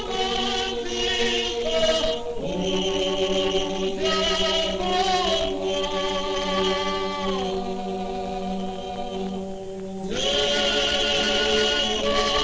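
Abkhazian folk ensemble singing unaccompanied in several parts: a long held low drone under voices that move and change pitch above it, with a fresh chord taken up about ten seconds in.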